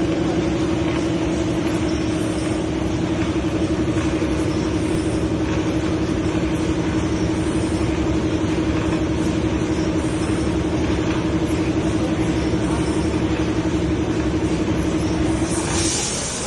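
Raffia cloth cutting machine running with a steady, loud hum and rattle; the hum stops about sixteen seconds in, with a short hiss as it does.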